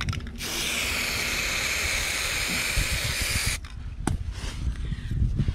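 Aerosol spray can of primer spraying onto bare sandblasted steel in one steady hiss of about three seconds that starts and cuts off sharply, followed by a single click. The primer is a quick coat to keep the freshly blasted, pitted metal from flash rusting.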